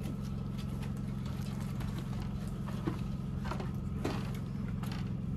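A few scattered knocks, like footsteps and boots on a wooden deck, over a steady low hum.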